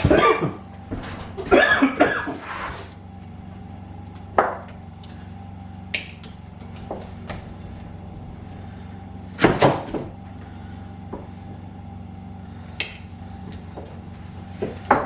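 Parts and packaging being handled: scattered knocks, clicks and rustles, with a cluster near the start, another about two seconds in and another about ten seconds in, over a steady low hum.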